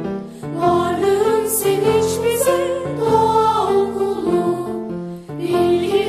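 A school anthem in march style: a voice sings the melody over instrumental accompaniment, with short breaks between phrases near the start and a little after five seconds.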